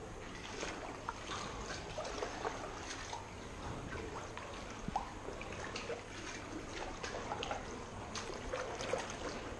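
Kayak paddle dipping into still water, with trickling and many small scattered splashes and drips.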